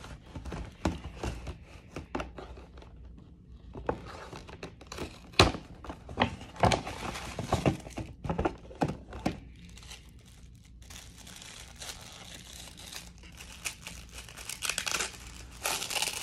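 Packaging being unwrapped by hand: paper or plastic crinkling and tearing, with several sharp knocks and handling bumps among the rustling.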